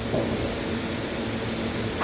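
Steady background hiss with a faint low hum, and a brief soft sound right at the start.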